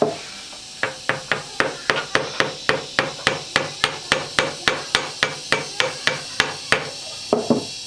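Rapid, even hammering, about three and a half blows a second, each blow ringing briefly, then a short pause and a final couple of blows near the end.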